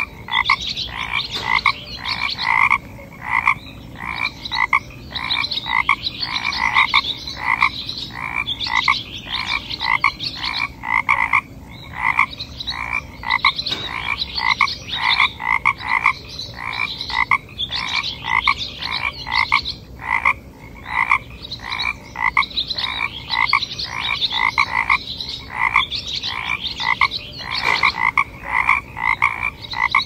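Frog croaking: short calls repeated several times a second in runs of a few seconds, with brief pauses between the runs.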